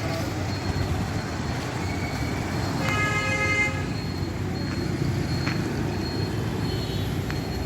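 Busy road traffic with vehicle engines running steadily, and a vehicle horn honking once, briefly, about three seconds in.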